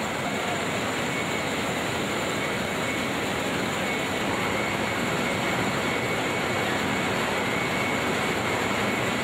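Soap-factory production machinery, conveyors and plodder, running with a steady mechanical noise and a faint steady whine. It fades out at the very end.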